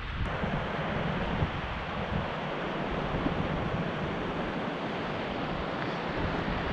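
Steady rush of a fast-flowing mountain river swollen with spring runoff.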